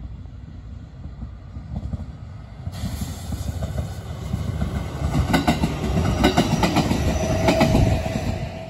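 Electric commuter train passing close by: its rumble builds over several seconds, with wheels clicking over the rail joints at the loudest part. A brief steady whine comes near the end, then the sound drops away as the train passes.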